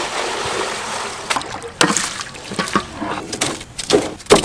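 Liquid poured from metal bowls into a large, steaming wok, splashing steadily. About two seconds in, this gives way to irregular sharp crackles and pops from a wood fire burning in a stove, with the loudest pop near the end.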